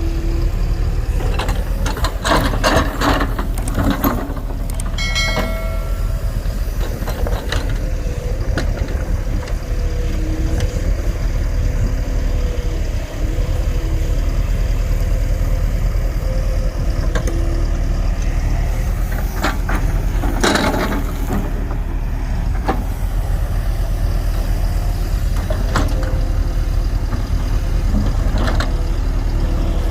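Heavy diesel engine of a JCB earthmoving machine running steadily under work, with bursts of metallic clanking early on and again about twenty seconds in, and a brief high squeal about five seconds in.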